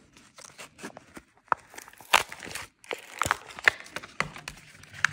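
Easy-open retail packaging being pried and torn open by hand: irregular crackling, crinkling and sharp snaps. The perforated tear-open section is not tearing cleanly.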